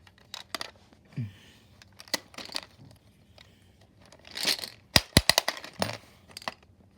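Novelty Dubble Bubble gumball machine bank being worked with a penny: scattered small clicks and handling noise, a short rasp about four and a half seconds in, then a quick run of sharp clicks as the coin and a gumball drop through the mechanism.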